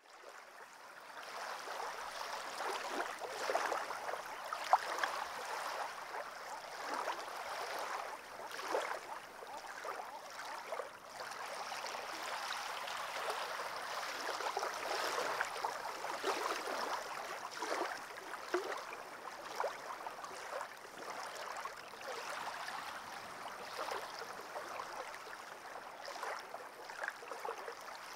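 Water gently lapping and trickling at the gravel shore of an alpine lake: a steady fine splashing with many small irregular splashes.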